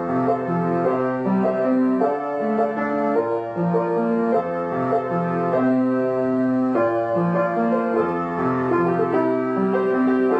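Background piano music: a gentle melody of sustained notes over a steady accompaniment.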